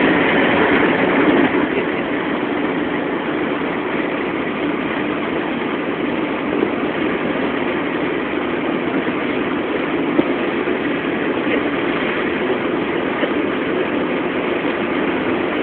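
A steady engine hum running without change, like a vehicle's engine and road noise.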